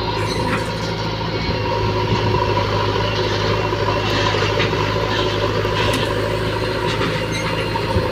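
Diesel engines of a JCB 3DX backhoe loader and a Mahindra tractor idling, a steady drone that holds one pitch.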